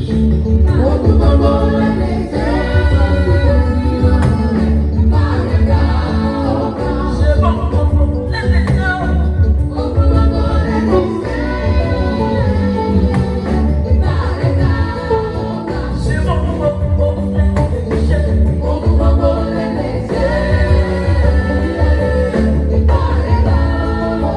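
Band music with singing, amplified through a PA at a sound check, with a strong bass line running throughout.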